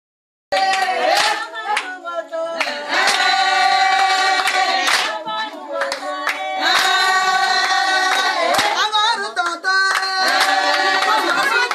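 A group of women singing together to hand clapping, starting abruptly about half a second in.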